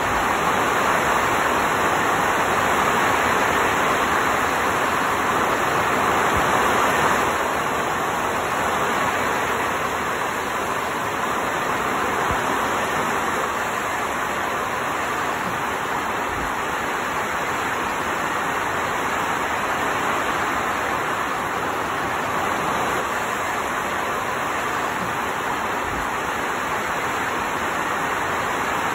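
Heavy rain falling steadily, a dense even hiss that is a little louder for the first seven seconds or so.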